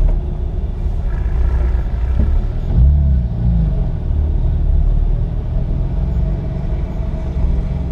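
Car engine and tyre/road rumble heard from inside the cabin at track speed, a steady low rumble, with the engine note briefly shifting in pitch about three seconds in.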